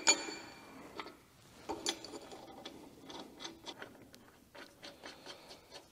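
Steel mounting brackets and plates being handled and fitted: a sharp clink with a brief metallic ring at the start, another clink about two seconds in, then a run of light, irregular metallic ticks.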